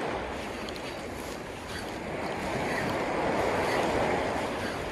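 Small sea waves washing against the shore, a steady rushing that swells and eases slowly.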